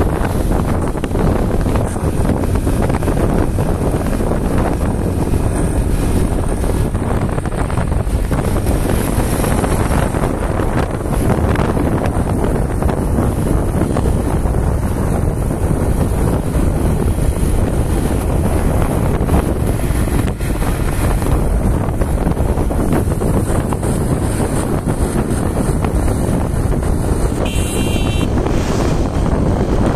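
Wind buffeting the microphone on a motorcycle riding at road speed, over the motorcycle's engine and tyre noise. A brief high-pitched tone sounds near the end.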